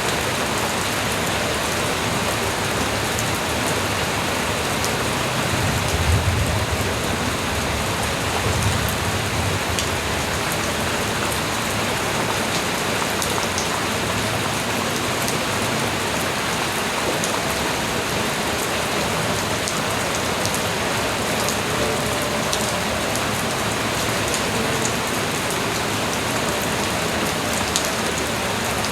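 Steady light rain falling, an even hiss with individual drops ticking on a surface. Two brief low rumbles come about six and nine seconds in.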